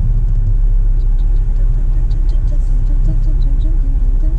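Small car running and moving off slowly, heard from inside the cabin as a steady low rumble of engine and road.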